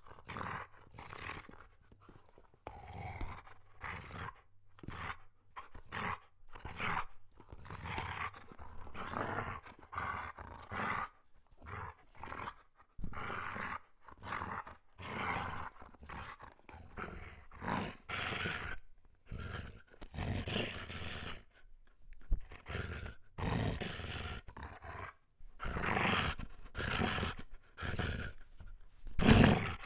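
A big German Shepherd growling in a long series of short, rough bouts with brief pauses between them. It is a play growl, made while tugging at a tug-of-war toy.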